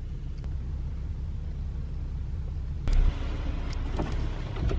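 Car driving, heard from inside the cabin: a steady low road rumble, with a brief louder bump about three seconds in.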